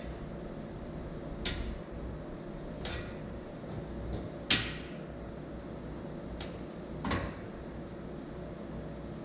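Scattered sharp metallic knocks and clanks from work on a steel frame, six in all, the loudest about four and a half seconds in, over a steady hum.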